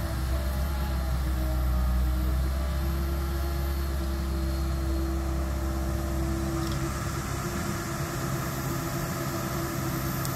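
Tracked hydraulic excavator's diesel engine running steadily with a deep hum and a held tone above it. The deepest part of the sound eases off about seven seconds in.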